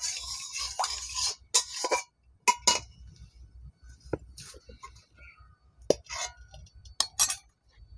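Stainless steel dish and utensils clinking and scraping against each other. A brief scraping rush at the start is followed by a scatter of sharp, ringing clinks.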